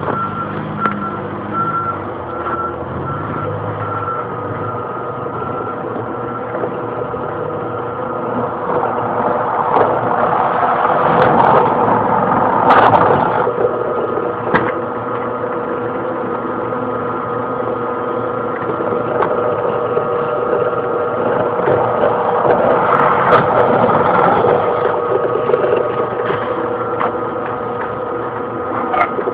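Benchtop drill press running with a steady motor whine, getting louder and grinding twice, about nine seconds in and again about twenty-two seconds in, as the bit bores through hard drive casings held in a wooden jig. A few sharp clicks come in between.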